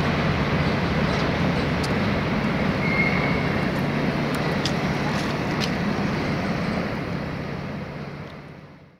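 Empty double-deck car-carrier freight wagons rolling away along the track, a steady rumble with a few faint clicks, fading out near the end.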